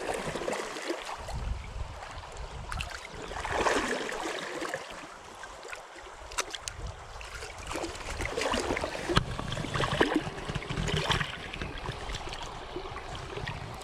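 Shallow stream water running and splashing as a hooked brown trout is played and handled by hand in the water to unhook it, with several short clicks and knocks of handling.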